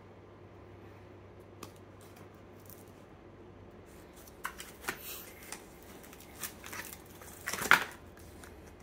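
Vacuum-sealed plastic steak packages being handled: a few short crinkles and taps starting about halfway through, the loudest near the end, over a faint steady hum.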